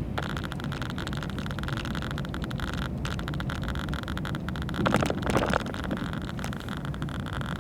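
A car's engine and tyre noise heard from inside the cabin while driving, steady throughout, with a short cluster of knocks about five seconds in.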